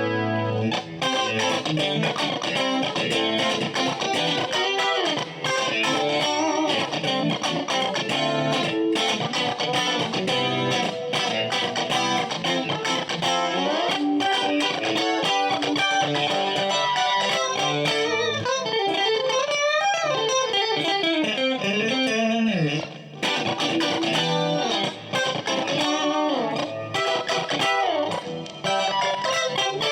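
Strat-style electric guitar with an ash body and rosewood fretboard, played through a clean tone in quick single-note runs, with sliding and bent notes about two-thirds of the way through.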